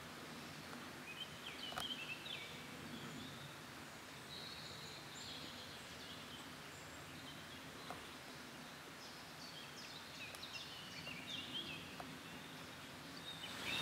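Quiet riverside ambience with faint bird calls: short chirping phrases about a second in and again in the last few seconds.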